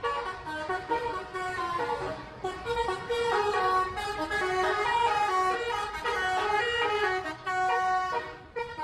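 Indonesian bus 'telolet' horns playing a tune: several horn notes sounding at once, stepping from pitch to pitch. There is a short break near the end before the notes pick up again.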